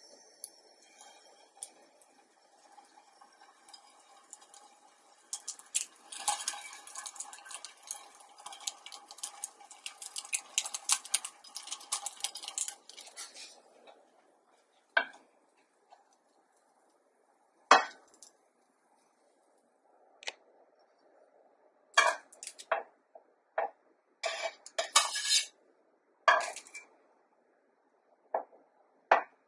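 Skewered dango searing in a lightly greased nonstick frying pan, with dense crackling for the first half. After that come separate sharp clinks and taps of skewers and utensils on metal, several in quick succession near the end.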